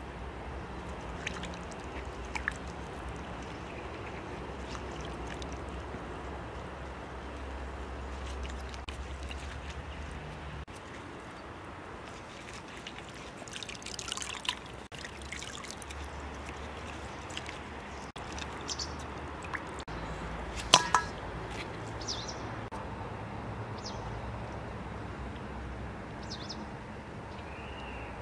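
Water sloshing, trickling and dripping in an enamel basin as a whole raw chicken is washed by gloved hands; water runs and drips off the bird as it is lifted about halfway through. A sharp knock about three quarters of the way in is the loudest sound.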